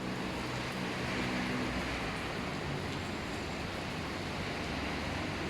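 Heavy rain pouring down steadily, an even dense hiss, with a low hum underneath for the first two seconds or so.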